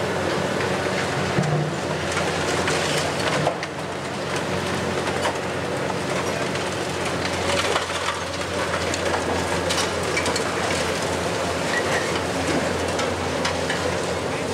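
Hitachi 870 long-reach demolition excavator running steadily while its demolition tool breaks concrete from the building, with repeated cracking and clattering of falling rubble over the engine drone.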